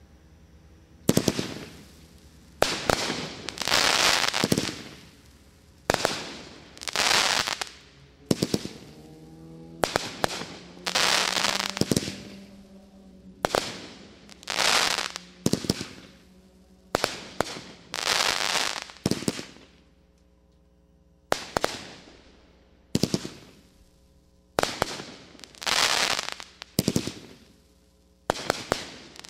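A 500-gram aerial repeater firework cake firing shot after shot, a sharp report roughly every one to two seconds. Each report is followed by about a second of fading, crackling hiss from the bursting time-rain stars.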